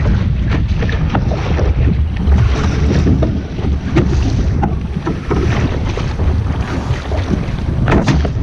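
Wind buffeting the microphone aboard a sailing boat, with water splashing and slapping against the hull in frequent short hits and a louder one near the end.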